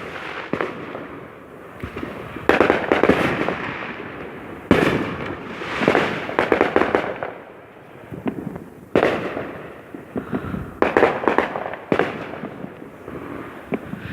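Consumer fireworks going off in quick succession: several sharp bangs, each trailing into a second or two of crackling.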